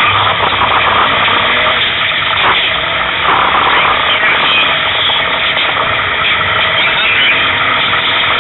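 Loud, steady engine and road noise inside the cabin of a stripped, roll-caged competition car on the move.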